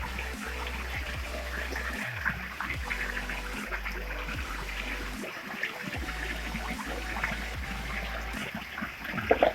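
Waterfall water rushing and splashing as a steady noise, with a low rumble that cuts in and out and a short louder sound near the end.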